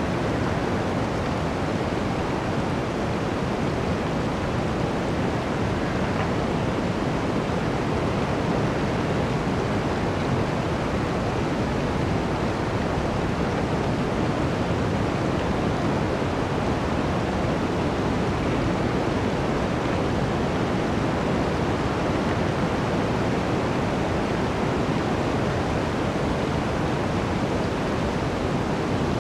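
Blizzard wind blowing steadily through a forest: a dense, even rush with most of its weight low down and no separate gusts or events.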